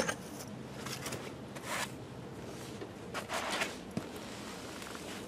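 Hand-handling noises from bare copper ground wire being pulled and worked into a clamp: two short rustling scrapes and a sharp click about four seconds in, over a faint steady low hum.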